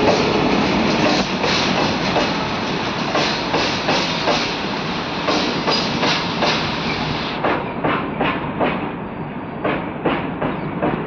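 Freight train of covered goods wagons rolling past, the wheels clacking over the rail joints in a steady repeating rhythm over the rumble of the running gear.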